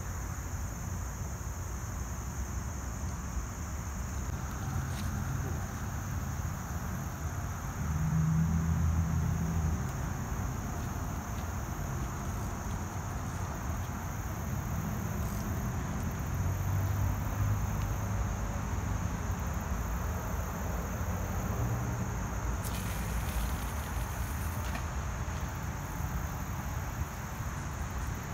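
Steady, high-pitched insect chorus from the lakeside vegetation over a low outdoor rumble. A brief hiss lasts about two seconds late on.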